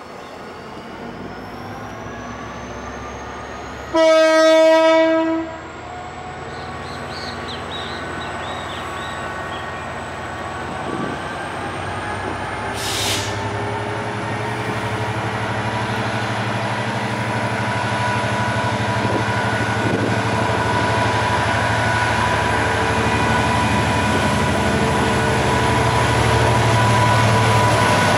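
Diesel locomotive hauling a passenger train as it approaches: one long horn blast about four seconds in, then the engine's rumble growing steadily louder as the train comes closer. A thin high whine rises in pitch through the first half, and there is a short hiss around thirteen seconds in.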